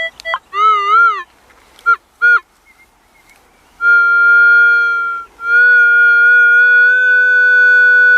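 Minelab CTX 3030 metal detector's audio signal on a buried target. A short warbling tone comes first, then two brief beeps, then a long steady high tone held for several seconds with one short break.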